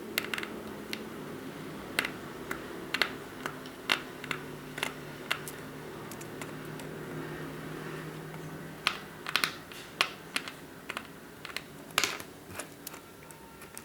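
Small screwdriver clicking and tapping against a smartwatch's strap screws and case, irregular sharp clicks over a faint steady hum.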